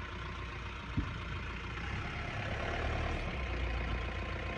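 Mahindra Bolero Camper pickup's four-cylinder diesel engine running at a low, steady idle as the truck creeps slowly through a dirt ditch, with a single low thump about a second in.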